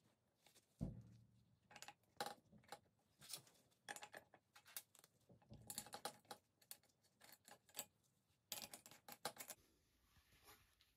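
Faint, scattered clicks and taps of small metal parts and an aluminium boost pipe being handled on a steel workbench as an intake air temperature sensor is fitted into its weld-on boss. A soft thump comes about a second in, and a quick run of clicks comes near the end.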